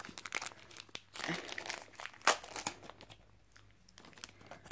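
Plastic wrapping on a pack of trading cards crinkling as it is handled, on and off, with a quieter pause near the end.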